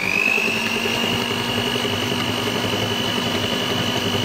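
Electric hand mixer running, its beaters whisking egg yolks and sugar in a mixing bowl. The motor's whine climbs over the first second, then holds steady.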